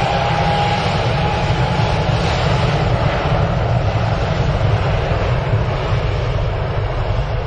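Jet engines of a Boeing 777 rolling along the runway: a loud, steady jet noise with a deep low rumble.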